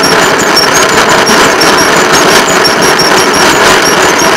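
Track motorcar (railroad speeder) engine running steadily as the car rolls along the rails, with irregular clicks and small high squeaks mixed in.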